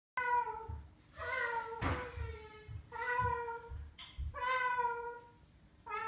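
White cockatoo imitating a cat's meow, four separate meows, each under a second long, the last one falling in pitch. A single sharp knock sounds about two seconds in.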